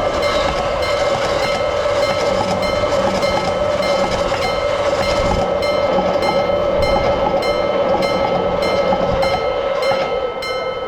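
Japanese level-crossing alarm ringing about twice a second, over the steady running noise of a train going past.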